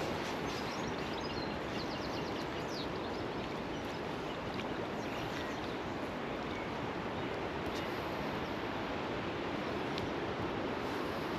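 Steady rush of flowing river water, with a small bird's quick high chirps in the first few seconds and again about five seconds in.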